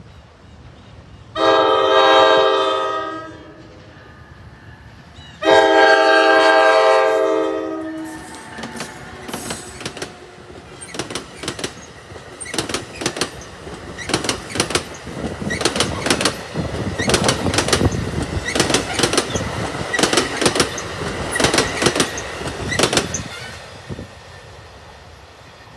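Two long blasts of the NJ Transit ALP-46 electric locomotive's chord horn, the second a little longer. Then the passenger train passes, its wheels clacking rapidly on the rails for about fifteen seconds before fading away.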